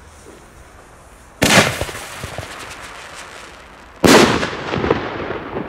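Pyroland BKS One single-shot firework: a loud bang about a second and a half in as the shell launches from its tube, then a second loud bang a little under three seconds later as it bursts in the air. Each bang trails off into a scatter of smaller crackling pops.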